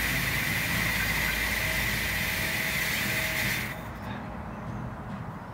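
ADJ VF1100 fog machine running, a steady hiss of fog jetting from its nozzle over a low rumble, now putting out normal smoke after its clogged heater was cleaned with vinegar. About two-thirds through, the hiss cuts off suddenly, leaving only the quieter rumble.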